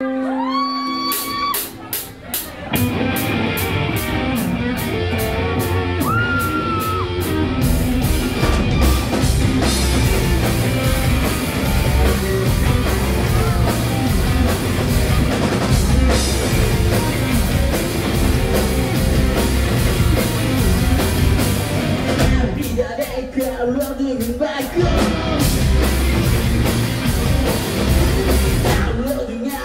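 Live indie rock band playing loud, with distorted electric guitars, bass guitar and a drum kit. It opens with a single note sliding upward before the full band comes in. The drums and bass drop out briefly near the end.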